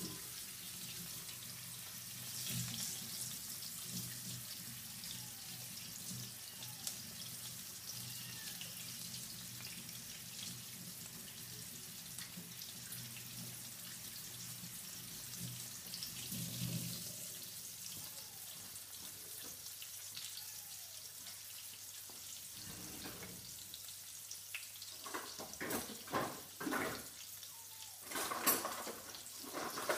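Breaded chicken breast pieces shallow-frying in oil in a frying pan, giving a steady sizzle. A few short knocks come near the end.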